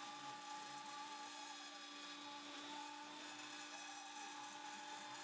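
CNC mill running a small end mill through the workpiece: a steady whine from the spindle and drive over an even hiss of cutting.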